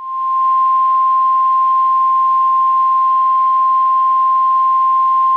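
Loud, steady single-pitch alert tone of about 1 kHz, the 1050 Hz warning alarm tone used by NOAA Weather Radio, swelling to full strength in the first half second and held unchanged. It signals that a tornado warning follows.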